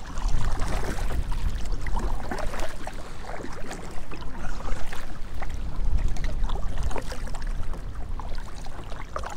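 Kayak paddle strokes splashing and water slapping the plastic hull, with wind buffeting the microphone as a steady low rumble.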